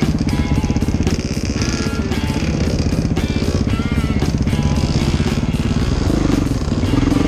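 Dirt bike engine running steadily, with music playing over it.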